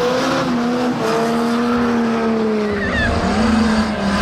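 Banger racing car engine held at steady high revs, a sustained note that dips briefly about three seconds in, over a rough rumble of other engines.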